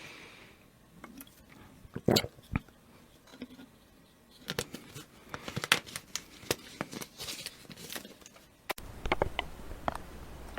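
A person drinking close to the microphone: sips, swallows and wet mouth clicks, with the loudest clicks about two seconds in and a busier run in the second half. A new take with a steady low background hum starts about nine seconds in.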